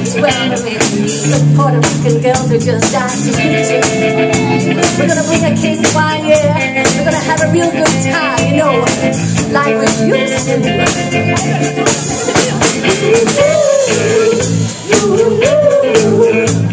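Live blues band playing electric guitars and a drum kit to a steady beat.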